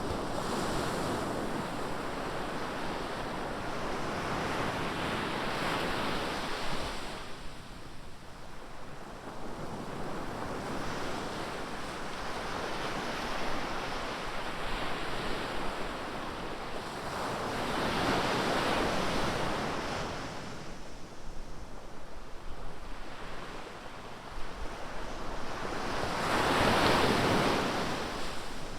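Ocean waves breaking and washing up the beach, the surf swelling and fading in slow surges every eight to ten seconds, with wind on the microphone.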